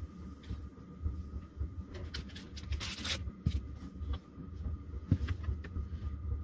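Cooking handling noises at a frying pan on a propane camp stove: bread and a butter wrapper handled, with small clicks and a short crinkling rustle about three seconds in, over a low steady rumble.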